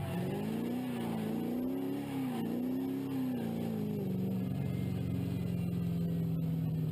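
Ford Mustang drift car's engine running under changing throttle, its revs rising and falling repeatedly, then holding steady from about four seconds in.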